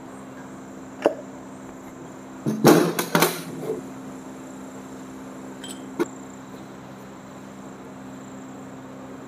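Metal parts and tools being handled while a piston is fitted into an engine block: a single sharp click about a second in, a short run of knocks and rattles around three seconds in, and another click about six seconds in, over a steady hum.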